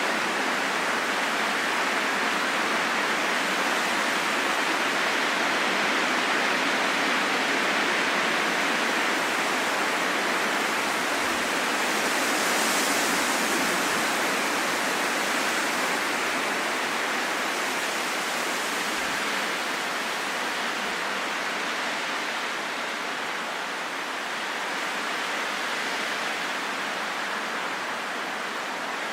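Wind blowing steadily, a continuous whooshing hiss with slow gentle swells, briefly brighter and hissier about halfway through and easing slightly toward the end.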